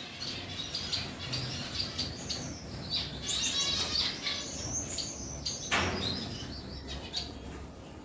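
A flock of Java sparrows chirping and flapping about as they fly around an aviary, with many short high chirps and a busier flurry of calls about three to four seconds in. A brief sharp noise comes near six seconds in.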